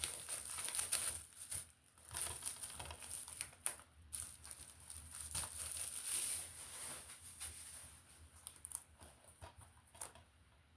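DVD packaging being handled and rustled by hand: irregular crinkling with sharp little clicks, dying down over the last few seconds.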